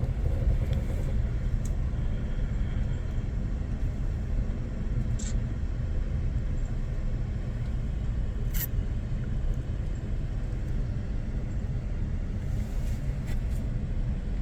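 Steady low rumble of the Amtrak Auto Train rolling slowly on the rails, heard from inside the passenger car as it creeps into the station. A few short clicks stand out: one about five seconds in, one around eight seconds, and one near the end.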